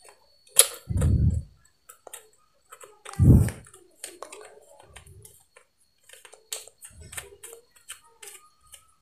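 Handling noise from a small black flashlight being turned over and twisted apart in the hands: scattered small clicks and taps, with a dull thump about a second in and another about three seconds in.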